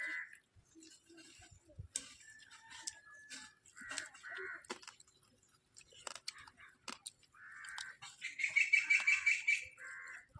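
A bird calling several times in short separate calls, with a longer, louder call near the end. Faint clicks of eating and utensils come in between.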